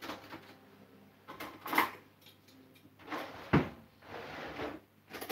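Kitchen drawer being opened and shut, with utensils rattled as cutlery is taken out: a few separate knocks and clacks with short rummaging between them. The loudest is a sharp knock about three and a half seconds in.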